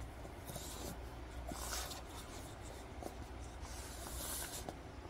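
Upturned paper cups being slid around on a padded fabric mat: a few soft scraping swishes with faint taps.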